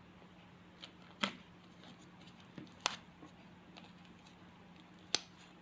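Fluffy slime being kneaded by hand, giving short sharp sticky clicks and pops, three of them louder than the rest, over a faint steady hum.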